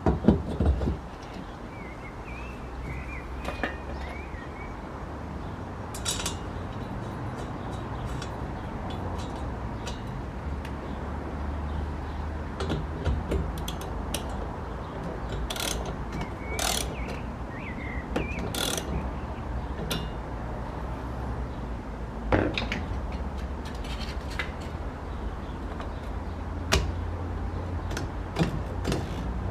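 Scattered clicks and knocks of hand work over a low steady hum.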